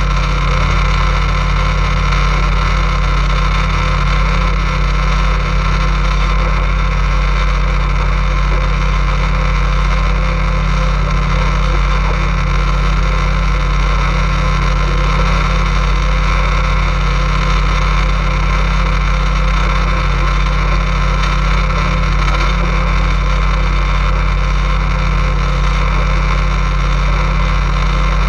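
Boat motor running steadily while underway: a constant, even drone that holds the same pitch throughout.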